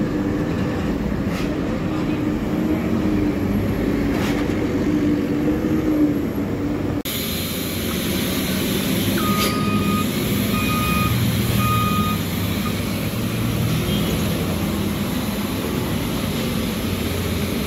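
Road traffic of trucks, cars and motorcycles running past, a steady engine drone with a wavering low engine tone in the first part that stops at an abrupt cut about seven seconds in. About nine and a half seconds in, three short high beeps sound in quick succession.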